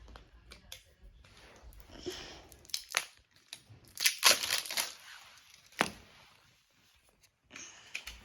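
Play-Doh tubs being handled and opened: crinkling and tearing of packaging, with a few sharp clicks, the loudest about four seconds in, quieter for the last two seconds.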